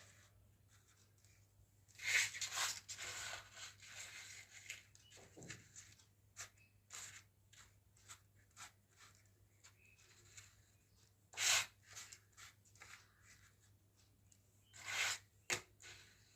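Toy packaging being opened and handled: a tearing, crinkling rustle about two seconds in, then scattered small clicks of plastic pieces and two more short rustles later on.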